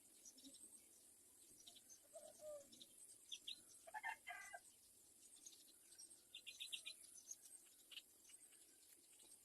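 Faint, scattered bird calls: quick runs of short high chirps, with a fuller call about four seconds in, over a steady high hiss.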